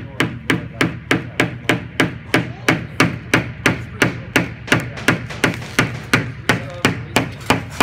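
Small claw hammer striking a wooden toy race car kit in a steady run of sharp taps, about three to four a second.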